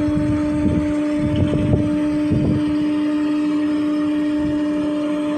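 Anchor winch gearbox running with a steady hum on one pitch, broken by a few rough low knocks in the first half: the abnormal noise of a dry, unlubricated bushing.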